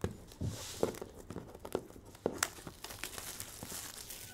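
Plastic shrink-wrap being torn and crinkled off a sealed Leaf Trinity basketball card box, in irregular sharp crackles.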